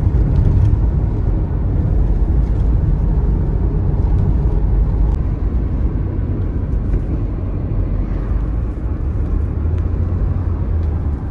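Steady low rumble of road and engine noise inside the cabin of a moving Toyota Noah minivan cruising along the road.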